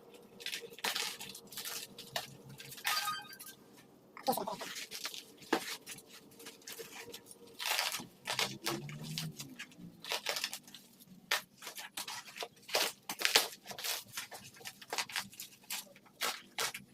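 Packaging being handled and opened: a steady run of irregular crinkles, crackles and small tearing sounds.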